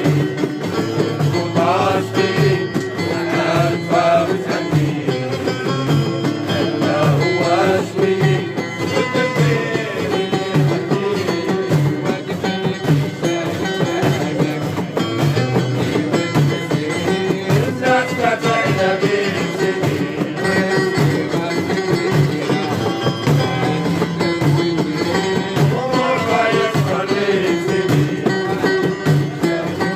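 Live folk music in a Middle Eastern or North African style: a melody that slides in pitch over a steady, regular low beat.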